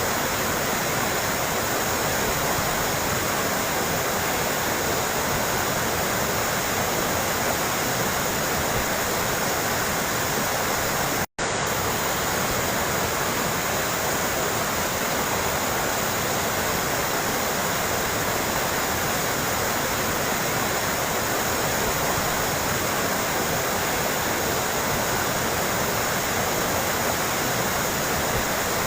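Running water splashing and trickling in a steady, dense rush. About eleven seconds in it cuts out for a split second, where the recording is spliced.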